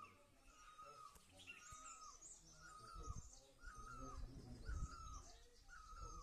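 A bird repeats one short mid-pitched call about once a second, each note with a quick wavering dip, while other birds chirp faintly and higher behind it. Low rumbles on the microphone come in the second half.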